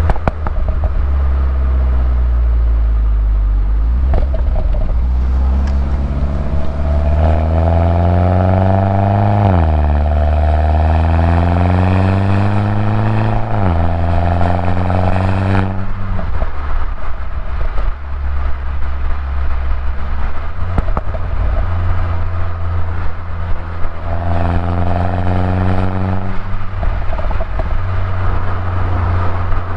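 Stock 2011 Mini Cooper S R56 with its turbocharged 1.6-litre four-cylinder pulling hard through the gears. The engine note climbs, drops sharply at two quick upshifts, then falls back to a steady cruise. A second climb later on falls away near the end.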